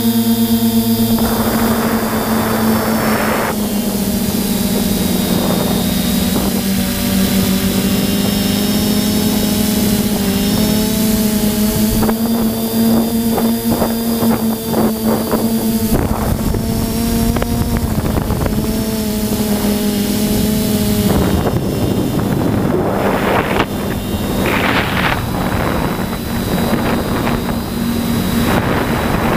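Multirotor drone's motors and propellers buzzing steadily, the pitch shifting a little as it manoeuvres, with gusts of wind noise on the microphone in the second half.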